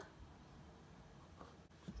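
Near silence, with faint handling of a plastic tub as sliced kiwi is tipped into a blender jar, and one soft knock just before the end.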